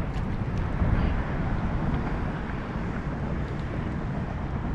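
Steady wind buffeting the camera microphone, a low rumble with a few faint ticks.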